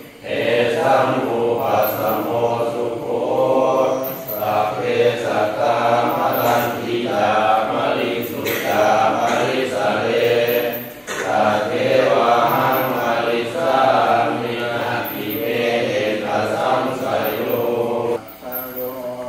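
Thai Buddhist temple chanting: a continuous chanted recitation with short breaks about 11 and 18 seconds in.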